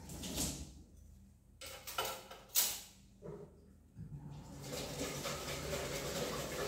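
Washing up at a kitchen sink: dishes and a pot clattering and knocking in the first few seconds, one knock sharper than the rest, then the tap running steadily into the sink from about four and a half seconds in.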